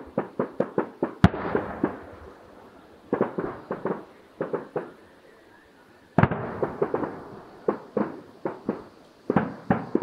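Aerial fireworks going off: a sharp bang about a second in and another about six seconds in, each followed by a run of rapid crackling pops, with more clusters of pops in between.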